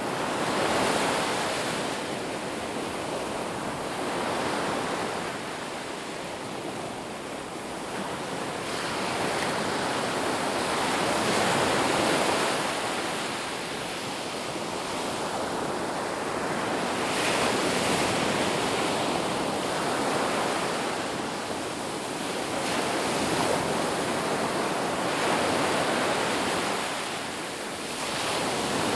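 Ocean surf washing onto a beach, waves breaking and receding in slow swells every few seconds.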